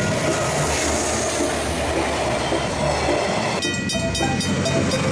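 A diesel train runs over a level crossing, a steady rumble with wheel clatter. About three and a half seconds in, the sound changes sharply to Griswold mechanical crossing bells striking rapidly and evenly, ringing as a freight train approaches.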